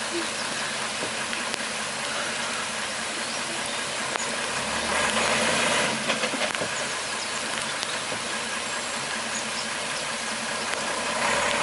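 Diesel engine of a Mercedes-Benz Unimog running at low speed as the truck crawls through deep mud, under a steady hiss. The noise swells briefly about five seconds in and again near the end.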